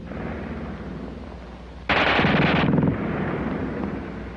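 A German machine gun firing a fast ripping burst of about a second, its shots too quick to count. The end of an earlier burst cuts off right at the start.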